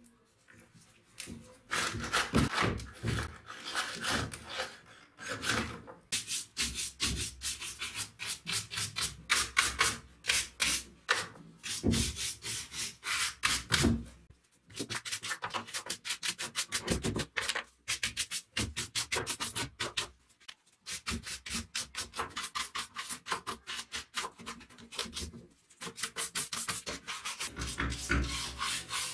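A stiff hand brush scrubbing back and forth over the dirty housing of an old chainsaw, in quick rasping strokes. It starts about a second and a half in and has a few short pauses.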